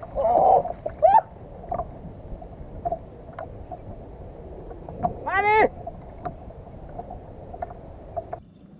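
Water splashing and knocking on a kayak as a largemouth bass is hauled out of the water by hand. There is a splash near the start, scattered short knocks, and a man's rising wordless exclamation about five seconds in, over steady wind and water noise.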